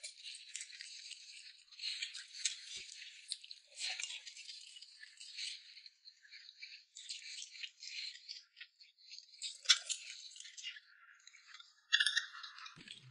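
Close-miked eating sounds from two people chewing soft food: a steady stream of small wet clicks, smacks and crackles. Near the end comes a louder clatter as a ceramic plate is pulled across the table.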